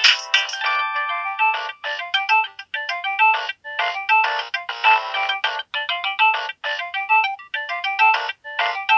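Nokia 7610 mobile phone playing a polyphonic ringtone: a fast electronic melody of short, quick notes, several sounding at once, with no bass.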